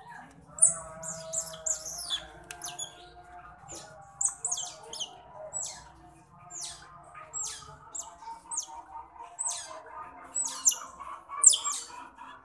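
Baby otter squeaking and chirping as it drinks milk from a feeding bottle: many short, shrill calls, each falling in pitch, coming in irregular clusters.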